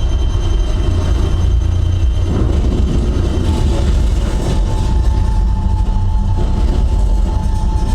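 Movie soundtrack playing at reference volume through a home-theater system, dominated by a deep, continuous bass rumble from a REL T9x subwoofer standing on a foam isolator pad. A steady higher tone comes in about three and a half seconds in.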